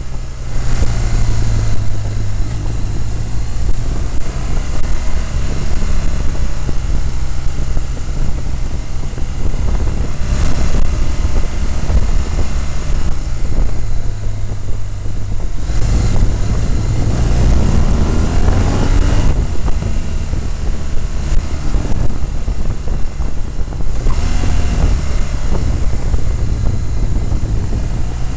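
A motorcycle engine running under way, under heavy wind rush on the microphone. Roughly two-thirds of the way through, the engine pitch rises as it accelerates.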